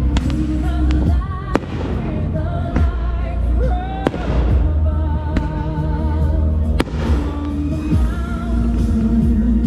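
Fireworks bursting with sharp bangs over a pop song with a singer and steady bass. The loudest bangs come about one and a half, four and seven seconds in, some followed by a crackling hiss.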